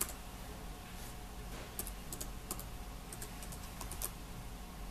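Typing on a MacBook laptop keyboard: light, irregular key clicks in short clusters as a web address is entered.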